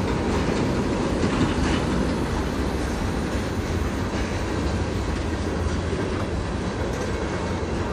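Freight train of covered hopper cars rolling past on steel rails: a steady rumble of wheels on track with faint scattered clicks.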